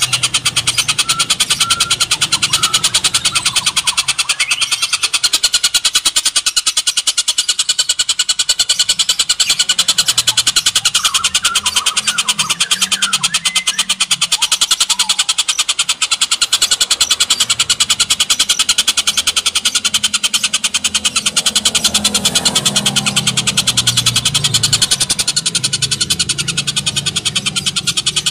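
Oriental dollarbird giving a long, unbroken, harsh rattling chatter, very rapid and even.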